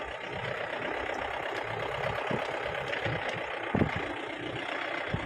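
Steady engine and road noise heard from inside a moving car's cabin, with a few low thumps, the loudest about four seconds in.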